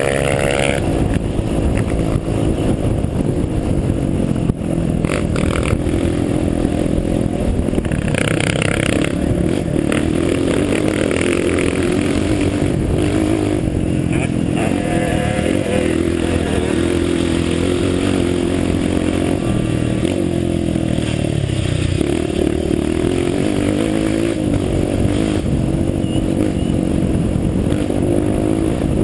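Off-road vehicle engine running continuously under load, its pitch rising and falling as the revs change, with a few brief knocks.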